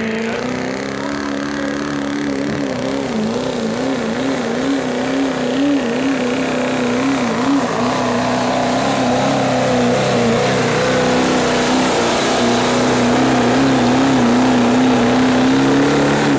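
Modified diesel engine of a Chevrolet Silverado pickup held at high revs under full load while pulling a weight-transfer sled. Its pitch wavers up and down for several seconds, then holds steady, with the overall noise slowly growing louder.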